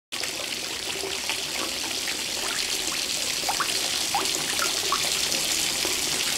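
Water spilling steadily over the rim of an overflowing clawfoot bathtub and trickling down its sides, with a few small plinks of drops and bubbles.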